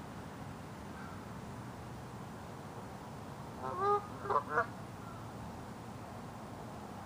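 Canada geese honking: a quick run of about three short honks a little past halfway, over a steady low background hiss.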